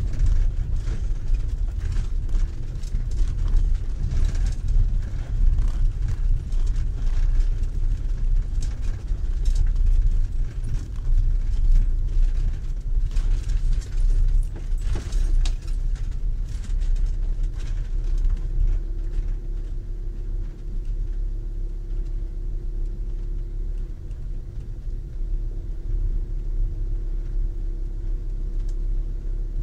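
Camper van driving on a dirt and gravel track, heard from inside the cab: a low, steady rumble of engine and tyres, with stones crackling under the wheels through the first half. About two-thirds of the way through, the crackling dies down and a steady engine hum comes through.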